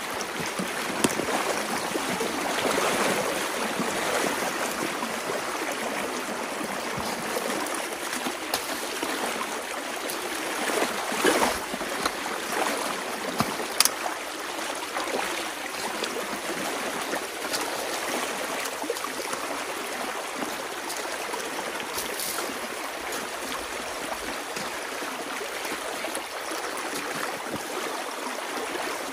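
Water rushing and gurgling through a breach in a beaver dam as the pond drains, a steady loud flow. A few brief sharp splashes stand out as a potato rake is worked into the dam's sticks and mud.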